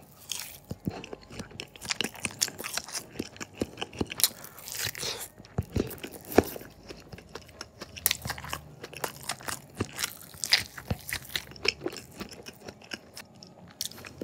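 Biting and chewing a slice of Spam topped with chopped bird's-eye chili: many short, irregular wet clicks and smacks of the mouth.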